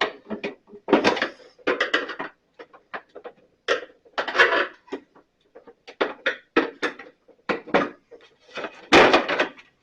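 Bandsaw cover being pried off with a screwdriver: a series of short knocks, clicks and clatters, with the loudest clatter near the end as the snapped-on cover comes free.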